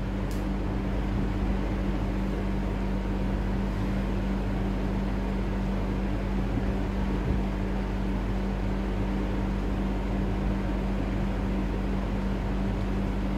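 Steady machine hum with a low drone and an even hiss, unchanging throughout.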